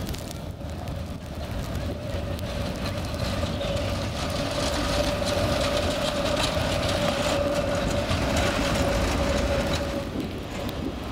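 Articulated electric tram passing close by on street track, rumbling, with one steady whine that rises in level as it nears and stops about ten seconds in.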